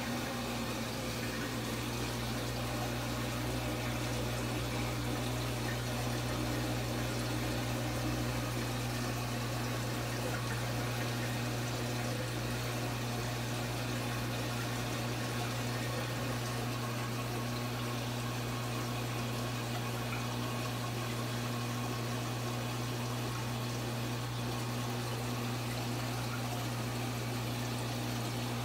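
Water rushing steadily into a large aquarium during a water change, over a constant low hum.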